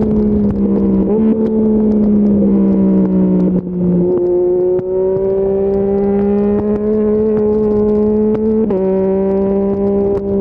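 Yamaha MT-09's three-cylinder engine running through an Akrapovic full-system exhaust while riding. Its pitch drops sharply at two upshifts, about a third of the way in and near the end, and climbs slowly under throttle between them.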